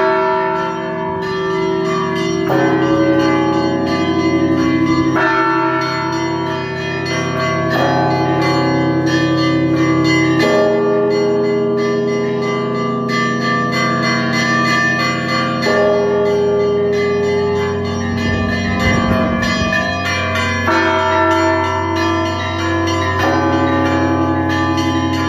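Russian Orthodox cathedral bells being rung together: a deep bell struck about every two and a half seconds under quicker chiming of smaller bells, all their tones overlapping and ringing on.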